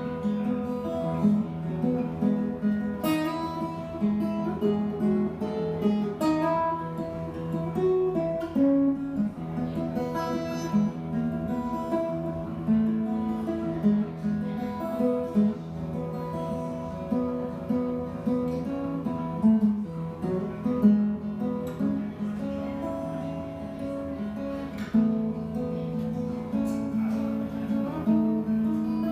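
Solo acoustic guitar playing an instrumental piece: a continuous run of picked notes and strummed chords, with a few sharp accents.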